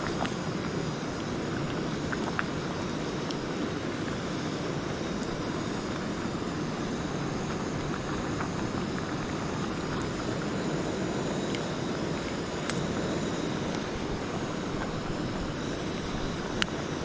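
Steady rushing of a portable gas stove burner under a metal pot, with a few sharp clinks of a metal ladle against the pot, the loudest near the end.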